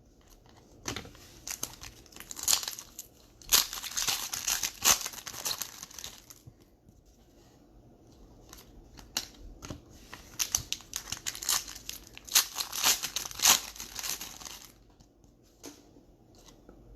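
Wrapper of a pack of baseball cards crinkling and tearing as it is handled and opened, in two bouts of dense crackling with a quieter pause between.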